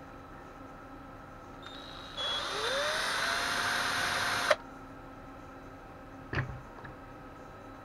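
Small cordless drill spinning up with a rising whine and running for about two seconds, drilling a balancing hole into the plastic impeller of a small cooling fan, then stopping abruptly. A single knock follows about two seconds later.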